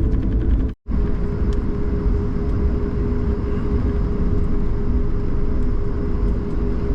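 Airliner cabin noise on an Airbus A220-300: a steady low rumble with a constant hum, broken by a brief dropout to silence just under a second in.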